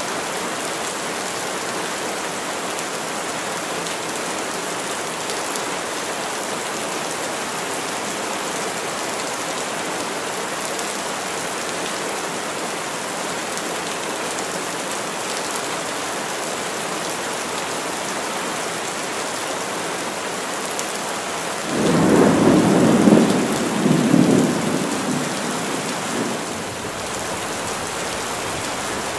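Heavy rain falling steadily through trees, with a rumble of thunder near the end that comes in suddenly, swells twice and fades over about five seconds.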